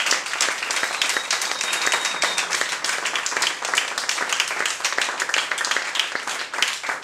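A small audience applauding, many hands clapping in a dense, steady patter.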